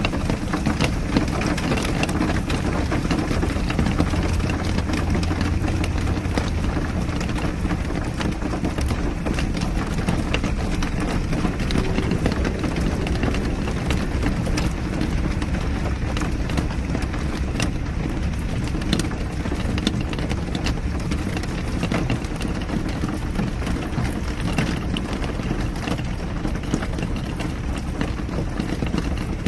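A car driving in rain: steady road and engine noise, with many small raindrop ticks scattered over it.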